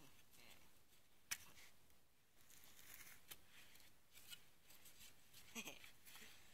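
Near silence with faint rustling and swishing as a long wooden staff is spun in gloved hands, a sharp tap about a second in, and a short falling squeak near the end.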